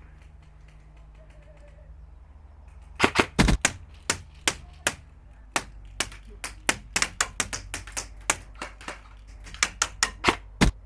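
Airsoft electric rifle (AEG) firing: sharp snapping shots, a quick cluster about three seconds in, then single shots and short strings a few tenths of a second apart, with another tight cluster near the end.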